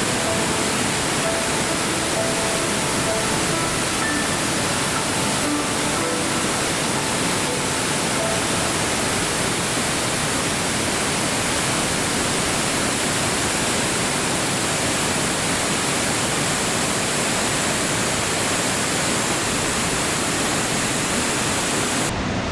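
Steady, unbroken rush of a waterfall's falling water, with faint background music notes over it for the first several seconds.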